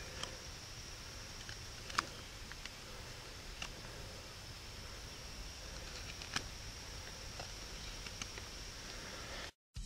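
Small carving knife shaving a wooden spoon blank: quiet scraping strokes with a few sharp, scattered clicks as the blade bites and pops off chips.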